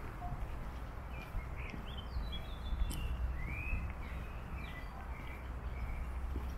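Small birds chirping and calling with short rising and falling notes, over a steady low rumble, with a single sharp tap near the middle.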